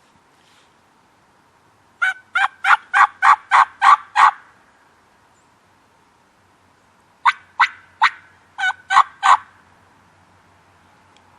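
Two series of hen turkey yelps: about nine sharp, evenly spaced notes, then after a pause about seven more, roughly three a second.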